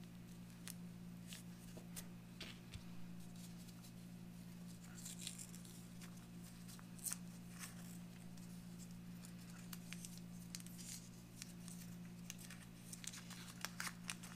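Paper wrapper of a packet of Wrigley's P.K. chewing gum being handled and torn open: faint scattered crinkling, small tears and clicks in short clusters. A steady low hum runs underneath.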